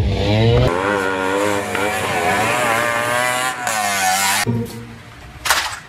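Auto-rickshaw engine revving hard, its pitch wavering up and down as the throttle is worked for about four seconds. A brief burst of noise follows near the end.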